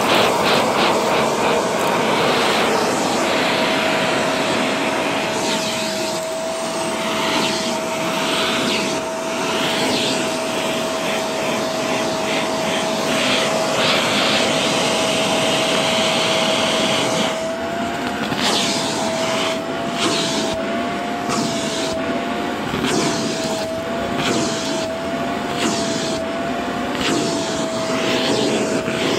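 Shark vacuum cleaner running with its hose attachment on carpet: a steady motor whine over rushing air. In the second half the whine wavers up and down repeatedly and the air rush swells and fades about once a second as the nozzle is worked over the carpet.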